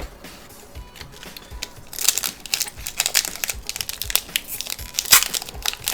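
Foil booster-pack wrapper being crinkled and crumpled in the hands: a few soft clicks, then dense, louder crackling from about two seconds in.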